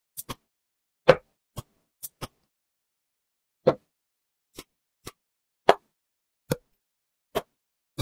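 A series of short, separate pops, about a dozen at uneven intervals with dead silence between them: sound effects laid over a stop-motion woodworking animation, one pop per step as pieces appear.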